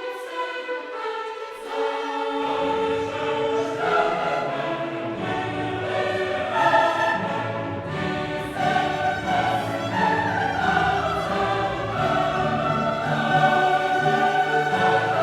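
Classical choral music: a choir singing with an orchestra, the low strings and bass coming in about two seconds in.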